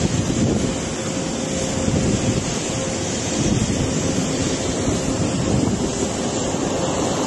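Steady loud rushing roar of a large fire at a steel works, with flames and billowing smoke or steam, picked up on a phone microphone, with a faint steady hum underneath.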